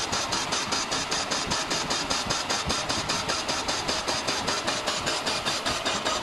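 Metal lathe turning a glass-mould blank, the cutting tool working its outer face. It makes a steady machining noise that pulses evenly about five times a second.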